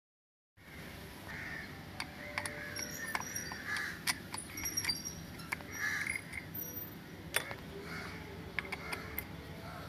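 Scattered light clicks and taps, with birds chirping and cawing in the background.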